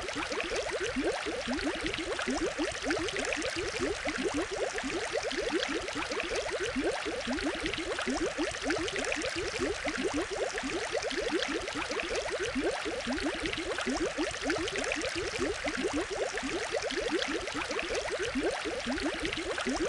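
Aquarium water bubbling steadily: a dense stream of bubbles heard as many quick rising blips over a hiss of moving water.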